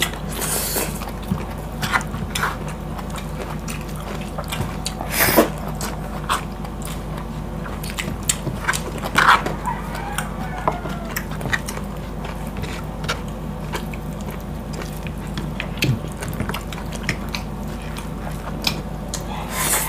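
Close-miked eating: chewing, lip smacks and fingers tearing at boiled pork hock, heard as scattered short sharp clicks with a couple of louder crackly moments, about five and nine seconds in. A steady low hum runs underneath.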